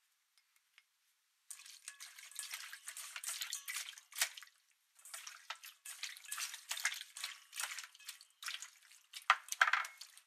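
Raw frog pieces being mixed by hand with seasoning in a stainless steel bowl: irregular wet slapping and clicking in bursts, starting about a second and a half in, with brief pauses.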